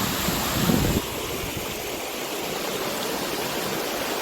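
Steady rushing of creek water spilling over a cascade. A louder low rumble stops abruptly about a second in, and the water noise continues evenly after it.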